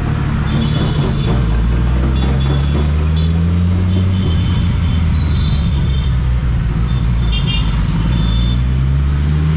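Ducati Multistrada motorcycle engine under way in town traffic, heard close up from the bike. Its pitch climbs steadily as it accelerates, drops back about four seconds in, then climbs again near the end.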